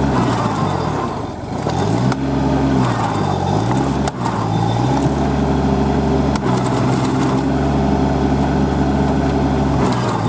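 Kubota B2441 compact tractor's diesel engine labouring while stuck in deep mud, its revs rising and falling several times. A few sharp knocks come through over the engine.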